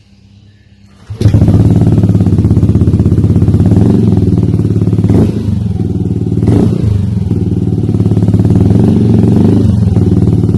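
Yamaha Aerox scooter's single-cylinder engine running loud and steady through an aftermarket Triton Neuro carbon-kevlar exhaust. It cuts in abruptly about a second in, after a short quiet gap.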